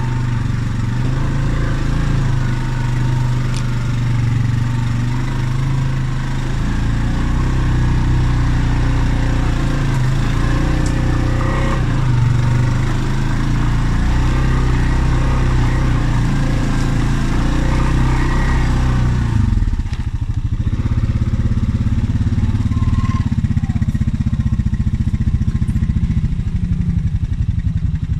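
Honda ATV engine running as it rides along a rough forest trail. About two-thirds of the way through, its note drops to a lower, evenly pulsing idle.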